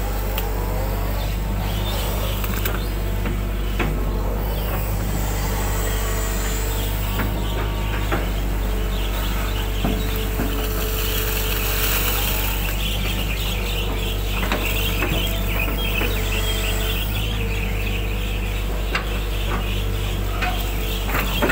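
Hitachi 120 hydraulic excavator working, heard from the operator's cab: the diesel engine runs with a steady low drone, a hydraulic whine comes and goes as the boom and bucket move, and there are scattered light knocks.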